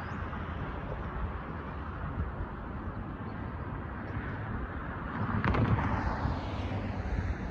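Steady road traffic and wind rumble, with a car driving past, loudest about five and a half seconds in.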